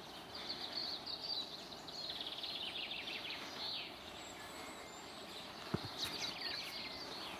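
Small birds chirping in quick, high, rapid runs over a steady outdoor hiss, with one short low knock a little before six seconds in.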